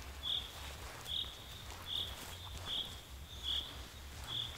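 A high, short chirp repeated steadily about every 0.8 seconds, six times, from a small animal calling, with a low rumble underneath.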